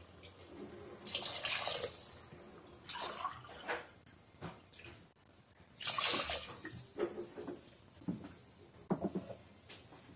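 Water poured from a tumbler into chicken gravy in an aluminium pressure cooker, splashing in several separate pours, the loudest about a second in and about six seconds in. This is the water added to cook the biryani rice.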